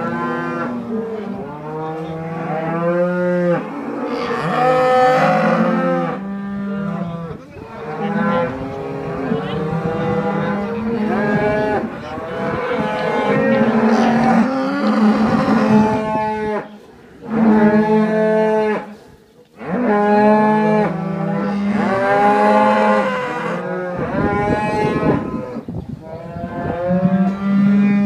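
A barnful of cattle mooing almost without pause, many calls overlapping one another, with two brief lulls a little past the middle.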